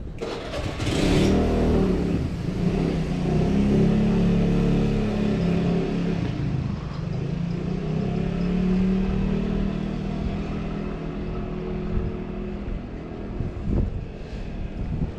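Small motor scooter engine pulling away and running down the street, its pitch rising as it accelerates about a second in, then dying away near the end.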